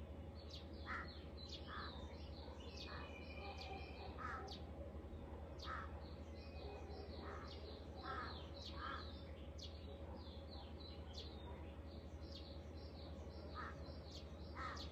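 Several birds calling and chirping: short calls repeat about once a second, with quicker high-pitched chirps among them and one brief whistle about three seconds in. A low steady hum runs underneath.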